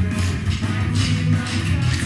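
Loud background music with a steady beat and a heavy bass line.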